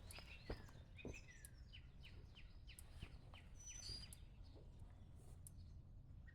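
Faint bird calls: a run of short chirps, about three a second, then a few higher whistled notes, over a quiet low hum of outdoor background.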